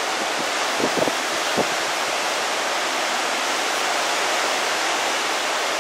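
Severe thunderstorm wind of a derecho gust front, around 70 mph, rushing steadily through trees, with a few short thumps between one and two seconds in.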